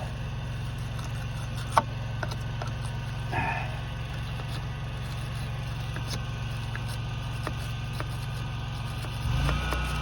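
An engine running steadily at idle, a constant low drone, with a single sharp click about two seconds in.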